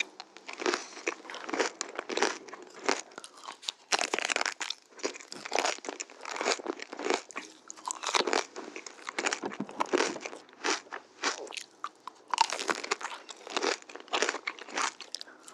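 Close-miked crunching and chewing of chocolate-coated ice cream bars: a dense, irregular run of crackly bites and chews.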